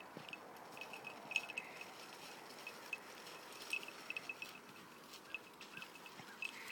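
Faint crunching of steps on icy snow as beagles move along a trail, with many light, irregular high ticks, some in quick clusters.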